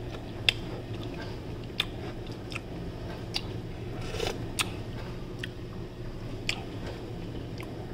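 A person chewing a mouthful of instant ramen noodles, with short sharp mouth clicks about once a second, over a faint steady low hum.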